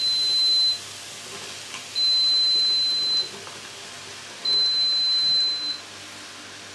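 Polaris multicooker beeping in frying mode, its signal that the bowl has heated. It gives long, even, high beeps of about a second each, one every two and a half seconds; the first is already sounding at the start. Faint light patter of chopped mushrooms sliding into the pot can be heard between the beeps.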